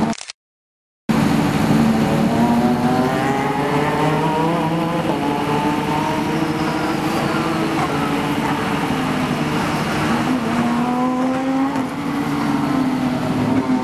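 Renault Mégane Trophy race cars' V6 engines running hard at speed, the pitch climbing through the gears, dropping at the shifts and climbing again as the cars pass. The sound cuts out completely for about a second just after the start.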